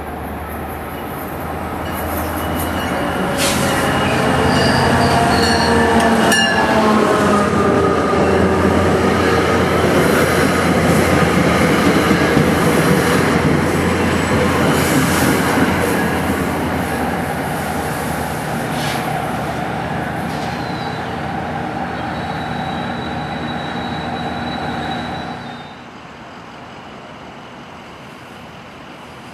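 NJ Transit commuter train going past close by: rail rumble and wheel noise building over the first few seconds, with thin high wheel squeals, then dropping off sharply about three-quarters of the way in as the end of the train clears.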